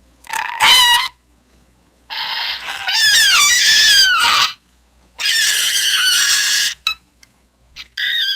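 Baby monster creature sound effect: high-pitched squeaks and squeals. A short squeak comes about half a second in, then a longer squeal of repeated falling cries from about two seconds. A raspy, hissing screech follows around the middle, and a brief squeak near the end.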